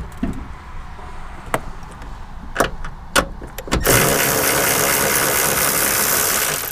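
Cordless electric ratchet running steadily for about three seconds as it spins a 14 mm nut off the rear strut's top mount. Before that come a few light clicks and knocks as the socket is fitted onto the nut.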